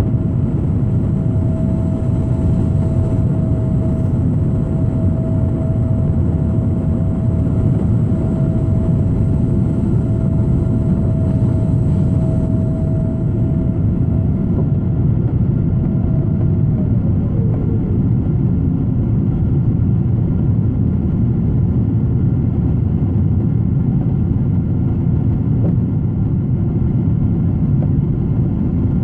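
Jet airliner's engines heard from inside the cabin during takeoff, a loud steady roar. A thin steady whine in it drops in pitch about two-thirds of the way through.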